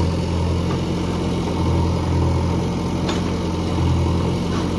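Diesel engine running steadily at a low idle-like rumble, swelling slightly now and then: a JCB backhoe loader at work scooping manure into a tractor trolley.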